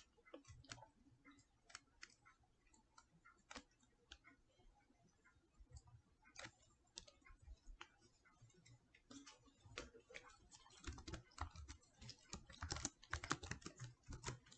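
Faint typing on a computer keyboard: irregular keystroke clicks, sparse at first and busier over the last few seconds.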